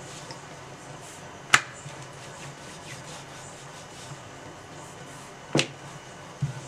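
Wooden rolling pin rolling out a sheet of dough on a board, with two sharp knocks about four seconds apart and a smaller one near the end, over a low steady hum.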